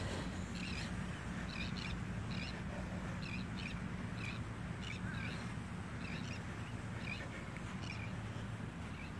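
Footsteps in dry, fine beach sand, each step giving a short squeak, about one step every 0.8 s at a steady walking pace, over a steady low rumble.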